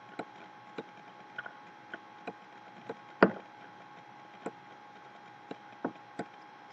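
Irregular light clicks and taps, about a dozen, of a stylus writing on a pen tablet, with one louder knock about three seconds in, over a faint steady electrical hum.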